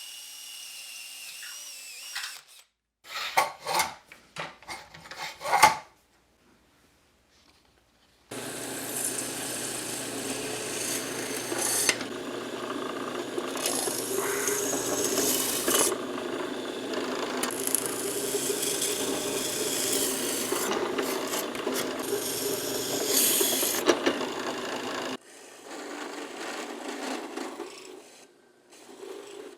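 Electric drill boring a 1/4 inch hole through a wooden base: a steady, noisy grinding of the bit cutting wood over a low motor hum for about fifteen seconds. Before it come a few knocks and clicks; near the end there is a quieter, softer cutting sound.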